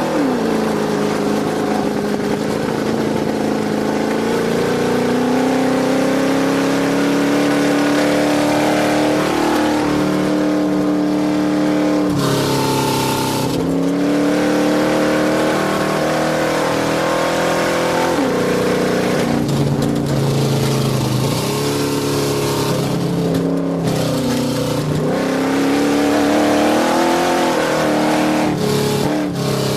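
Off-road race truck's engine running hard at speed, its pitch climbing steadily, then dropping and climbing again several times as the throttle and gears change.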